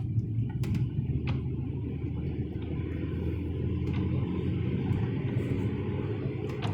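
Steady low rumble of engine and road noise inside a moving car's cabin, with a few faint clicks.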